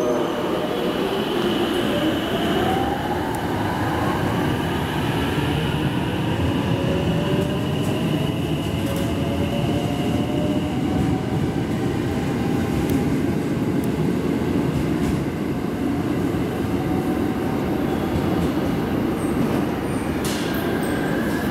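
JR West-built 521 series electric train pulling away and accelerating past. A whine from its traction motors rises in pitch over the first several seconds, above a steady rumble of wheels on the rails.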